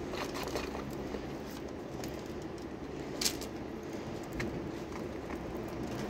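Scattered small clicks and cracks of budgerigars pecking and husking seed, with one sharper click about three seconds in, over a steady low background hum.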